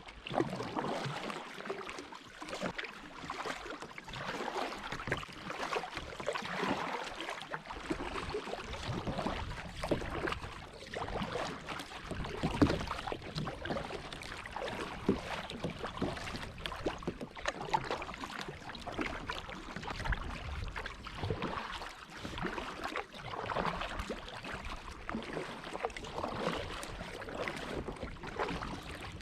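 Seawater splashing and sloshing around a sea kayak as it is paddled, in irregular surges.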